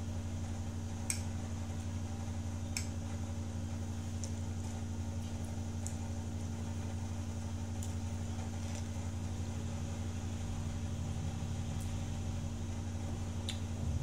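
Steady low machine hum from a running motor or appliance, with a few faint clicks of a metal fork against a plate.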